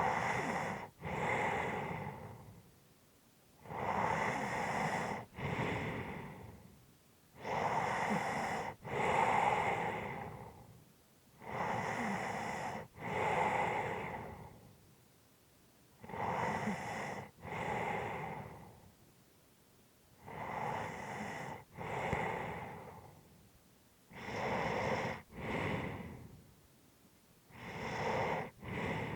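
A person's slow, heavy breathing: eight breaths about every four seconds, each a noisy in-breath and out-breath with a short break between.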